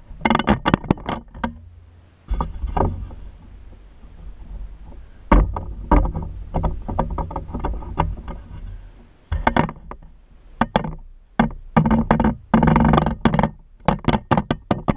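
Handling noise close to the microphone: irregular knocks, clicks and rubbing as the recording device is picked up and moved, over a low rumble.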